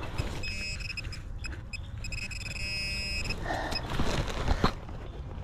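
Handheld metal-detecting pinpointer beeping while probed in a dig hole: a run of short high beeps that merges into a steady tone about two seconds in and breaks off about a second later, the pinpointer's signal for metal near its tip. A couple of knocks follow near the end.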